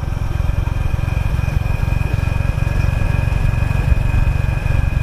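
Motorcycle engine running steadily as the bike is ridden, a dense low rumble, with a thin steady high-pitched whine over it.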